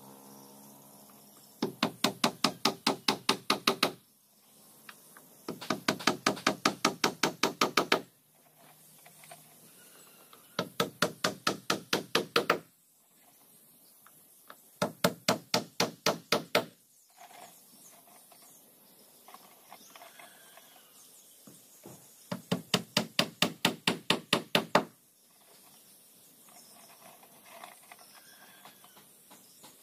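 Hammer blows on the wooden bow of a boat hull, in five quick runs of about ten sharp knocks each, roughly five strikes a second, with short pauses between runs.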